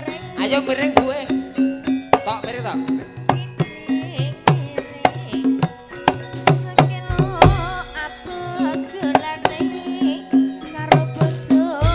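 Javanese traditional ensemble music: a kendang hand drum plays a steady pattern of strokes under a woman singing a wavering, ornamented melody, with sustained pitched notes from the band.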